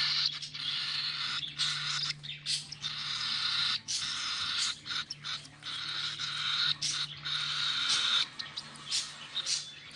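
Baby cockatiel chicks giving their raspy food-begging calls while being hand-fed: a near-continuous hissing buzz broken by many short gaps. A steady low hum runs underneath.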